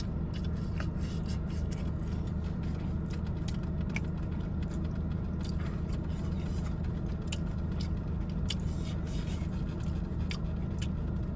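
Steady low hum of a car idling, heard inside the cabin, with small scattered clicks and rustles from handling things in the seat.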